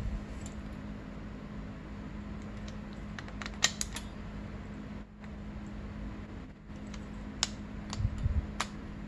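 Torque wrench tightening the intake bolts of a Honda CR85R two-stroke engine to about 6, with a few sharp clicks: a cluster a little over a third of the way in and two more near the end. Under it runs the steady hum of a shop fan.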